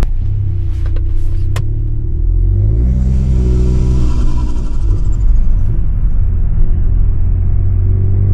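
Tuned Volkswagen Golf GTI Mk7's 2.0-litre turbo four-cylinder with a decat exhaust, its note dropping at first with a few sharp clicks about a second in. The engine then pulls up through the revs from about three seconds in, a hiss rising over it, and climbs again near the end.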